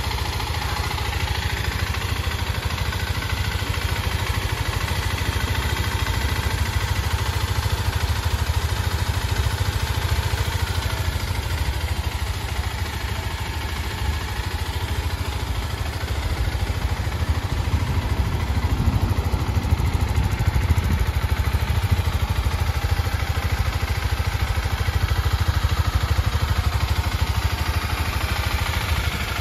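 Kawasaki KLX250's single-cylinder four-stroke engine idling steadily through an FMF PowerBomb header, getting somewhat louder in the second half.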